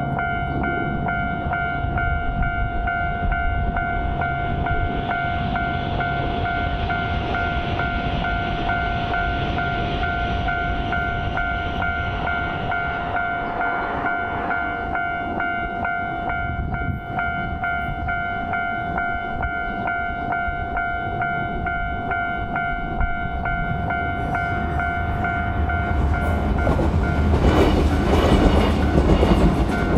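Japanese railway level-crossing alarm ringing steadily with its electronic kan-kan tone, while a train approaches and passes; the train's running and wheel noise swells loudest in the last few seconds.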